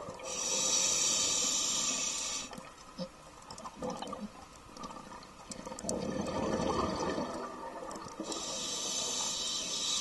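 Scuba diver's regulator breathing underwater: a steady hissing inhalation at the start and another near the end, with a burble of exhaled bubbles between them.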